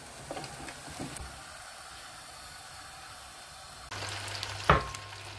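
Oil sizzling as potato patties (aloo tikki) shallow-fry in a pan, a soft steady hiss. About four seconds in the sound grows louder with a low hum underneath, and a sharp knock follows soon after.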